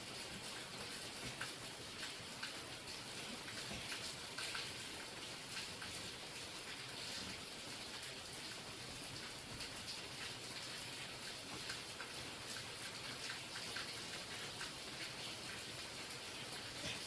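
Real rain falling steadily, with many individual drops pattering on a surface over a constant hiss.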